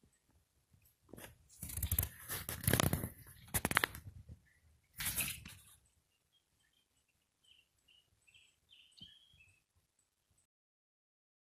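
Two bursts of loud rustling, crackling noise in the first half, then faint short bird chirps. The sound cuts out to silence near the end.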